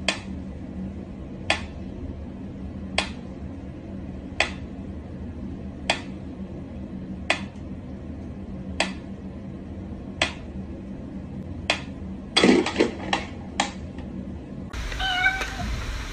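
Mechanical pendulum metronome ticking slowly, one tick about every second and a half. Near the end comes a quick run of louder clicks and knocks, followed by short wavering meow-like calls.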